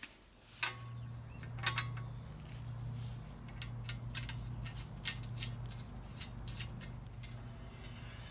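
Metal clicks and clinks from a bottom bracket cup removal tool being fitted into a bicycle frame's bottom bracket shell: a few sharper knocks in the first two seconds, then a run of small light clicks as the nut goes onto the tool's threaded rod. A steady low hum runs underneath from about half a second in.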